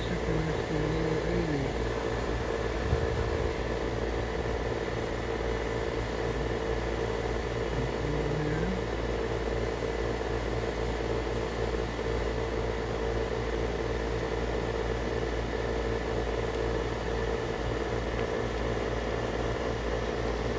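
A steady mechanical hum with a constant low drone that does not change. A few faint short gliding sounds come in the first two seconds and again about eight seconds in.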